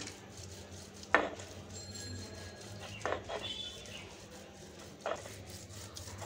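A stone roller grinding cooked bottle gourd leaves into a paste on a shil-pata grinding stone, with a low wet scraping as it is worked back and forth. Three sharp stone-on-stone knocks, about two seconds apart, are the loudest sounds.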